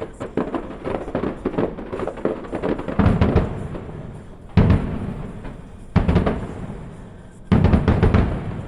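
Fireworks going off: rapid crackling pops, then four heavy booms about a second and a half apart, each trailing off into crackle.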